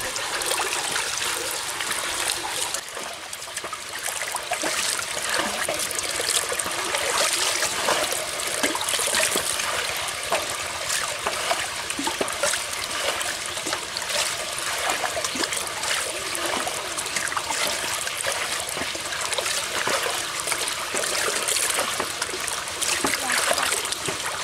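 Water pouring steadily from a spout in a mud bank into a woven bamboo basket trap, splashing into the water and onto the fish caught in it.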